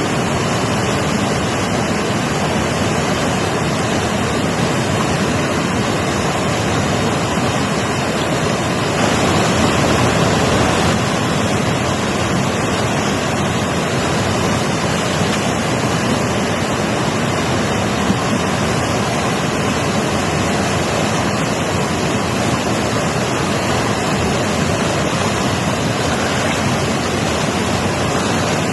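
Mountain river rushing: a steady, dense roar of flowing water, a little louder for a couple of seconds about ten seconds in.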